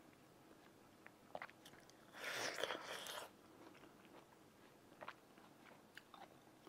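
A person eating an orange slice close to a clip-on microphone: a wet bite into the fruit about two seconds in that lasts about a second, then faint chewing with small scattered mouth clicks.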